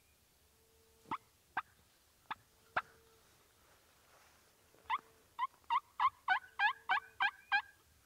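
Turkey calls: four sharp single notes about half a second apart, then, from about five seconds in, a quick, louder run of about ten notes at roughly four a second.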